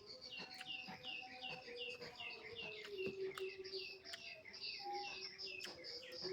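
A bird chirping in a fast run of short, falling chirps, about three a second, with scattered small clicks.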